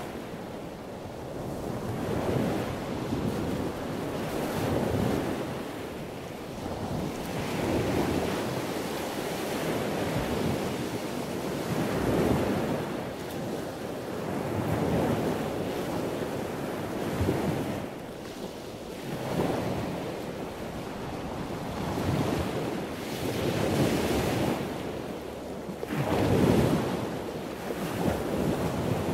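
Ocean surf: waves wash in and draw back in repeated swells every few seconds, with the loudest one near the end.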